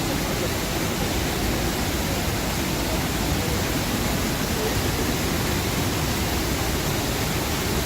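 Steady, loud rushing of a waterfall, an even roar of falling water with no breaks.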